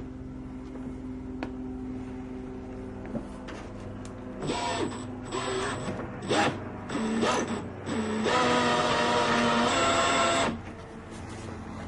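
Homemade coil winder and wire stripper set running, winding 14 gauge THHN wire onto its rod: a motor whine in several short bursts that speed up and slow down, then a steady run of about two seconds that stops. Under it runs a faint steady hum.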